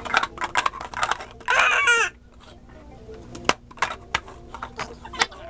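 Clear plastic cups clacking and tapping against each other and a wooden table in quick, irregular clicks as they are stacked and unstacked at speed. A loud, high-pitched vocal squeal cuts in for about half a second, about a second and a half in.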